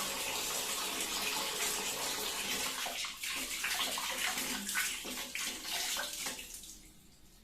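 Tap water running steadily into a doubled condom being filled as a water balloon; the flow dies away near the end.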